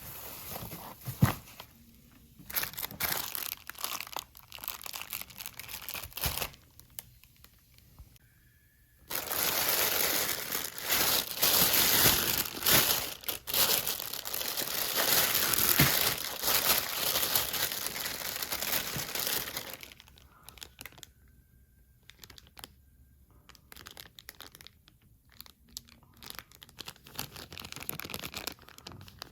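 Packing material crinkling and tearing as it is pulled off and unwrapped. There are scattered handfuls at first, then a long stretch of loud, continuous crinkling in the middle, and sparser, quieter rustles near the end.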